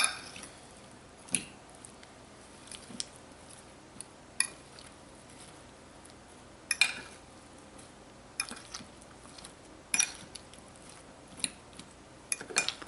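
A spoon stirring buttered, oiled potato chunks in a dish: short clinks and knocks against the dish about every one to two seconds, with soft squishing between them and a quick cluster of clinks near the end.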